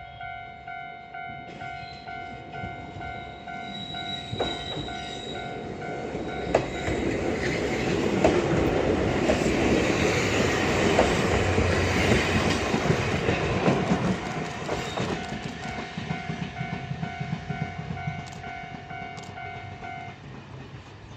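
Japanese level-crossing warning bell ringing in an even, repeating ding. A Wakayama Electric Railway electric train passes over the crossing, getting louder from about 6 s and clattering over the rail joints, loudest about halfway through, then fading. The bell stops near the end.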